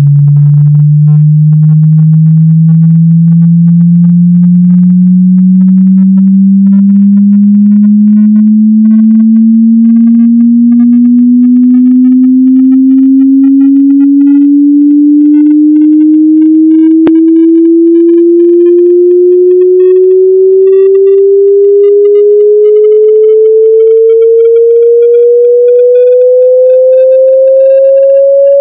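Hearing-test frequency sweep: a single pure sine tone climbing slowly and steadily in pitch, from a low hum to a mid-range tone.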